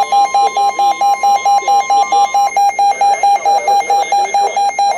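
Electronic alert beeper sounding a rapid, buzzy beep that repeats evenly about four to five times a second, an emergency alert signal. A fainter steady higher tone runs underneath and stops about halfway through.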